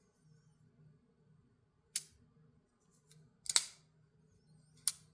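Button-lock folding knife being snapped open and shut: three sharp metallic clicks about 2 s in, 3.5 s in (a quick double, the loudest) and near the end.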